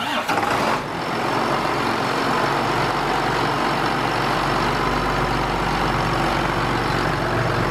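John Deere 7810 tractor's six-cylinder diesel engine running steadily, after a brief irregular noise in the first second.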